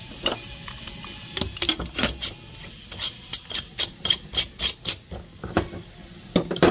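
Irregular sharp clicks and light clinks of coffee beans and glass jars being handled, with a few softer knocks near the end.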